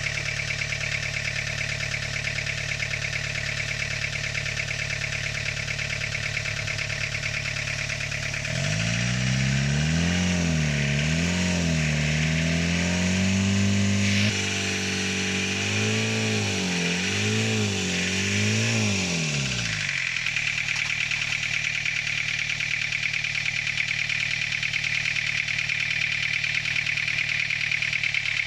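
Toyota 3L 2.8-litre four-cylinder diesel running on a freshly rebuilt injection pump: it idles steadily, is revved up and down in repeated swings for about ten seconds in the middle, then drops back to a steady idle.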